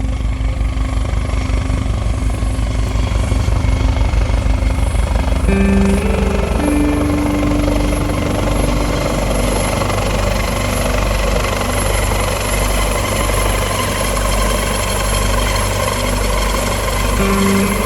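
Helicopter running close by, a loud continuous rapid rotor chop. From about six seconds in, steady humming tones rise above the chop.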